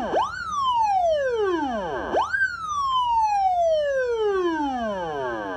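Electronic police-style '113' siren for a motorcycle, wailing. Each cycle is a quick rise in pitch and then a long falling glide, and the cycles grow longer, from under a second to over three seconds, as its wail-length knob is turned up.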